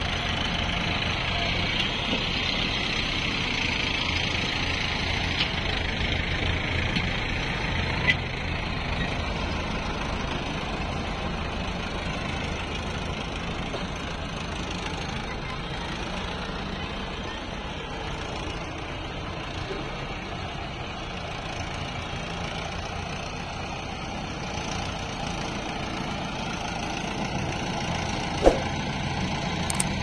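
Diesel tractor engine running steadily close by, with a backhoe loader's diesel engine mixed in, slightly louder over the first several seconds. A few short sharp knocks stand out, about five, eight and twenty-eight seconds in.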